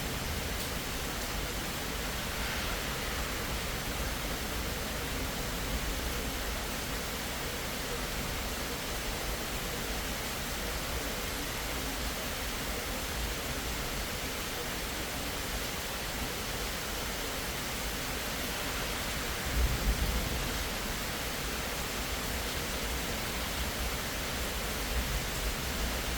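Steady hiss of heavy rain falling. About three quarters of the way through, a short, loud, low thump stands out above it.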